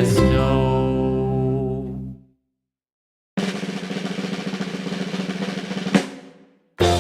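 The last chord of a song rings out and fades, and after a second of silence a snare drum roll runs for about two and a half seconds, ending in one sharp hit: a drum-roll sound effect.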